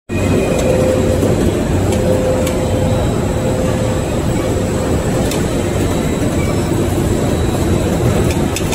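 Dough production machinery (vacuum dough mixer, conveyor and dough sheeting machine) running: a loud, steady mechanical drone with a low hum and a faint tone that comes and goes, and a few faint ticks.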